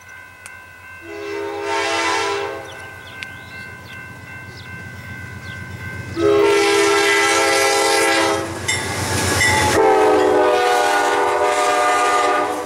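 Horn of an approaching Amtrak California passenger train, sounded from the leading cab car: a short blast, then two long blasts, each a multi-note chord, as the train nears the grade crossing.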